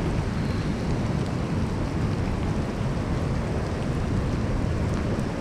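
Steady downpour of rain heard through a body-worn camera's microphone: a continuous low rumble with faint scattered drop ticks.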